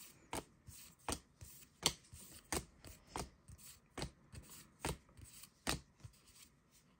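Trading cards being flipped through one at a time: each card slid off the front of the stack and tapped onto the back, making a short crisp click about every three quarters of a second, eight in all, fading out near the end.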